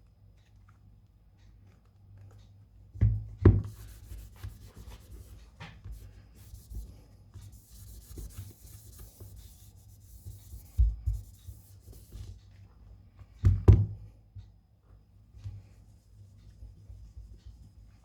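Hands handling small objects on a repair bench: a few sharp knocks as things are set down, around 3 seconds in, near 11 seconds and again near 13.5 seconds, with several seconds of scratchy rubbing between them.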